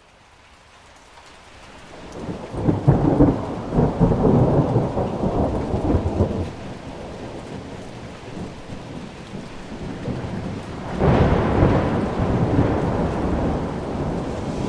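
Thunderstorm: rain hissing steadily, swelling up out of quiet at the start, with two rolls of thunder. The first rumbles from about two seconds in for several seconds; the second breaks more sharply about eleven seconds in and fades slowly.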